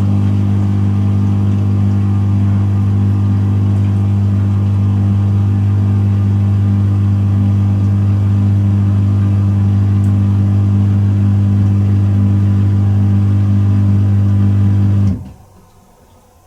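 Pro Action PRSLG96W slimline dishwasher's pump running with a loud, steady electric hum, which cuts off abruptly about fifteen seconds in.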